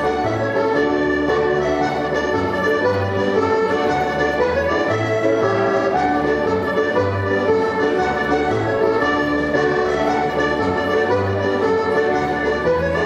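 Scottish jig music playing continuously, a lively dance-band tune with sustained reedy melody notes over a regular bass beat.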